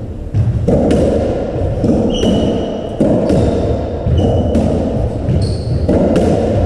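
Racketball rally: the hollow rubber ball is struck by rackets and bounces off the walls and floor in a quick run of sharp hits, echoing in the enclosed court. Short squeaks from shoes on the wooden floor come a few times in between.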